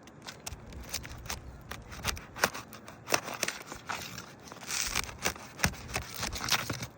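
Seal strips of old asphalt roof shingles being pried loose: irregular crackling and snapping as the sealant lets go, with short tearing rasps.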